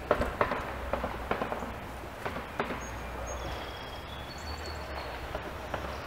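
Irregular light taps and knocks, two or three a second, that stop about halfway through. Several short, thin, high whistled bird calls follow. A steady low rumble runs underneath.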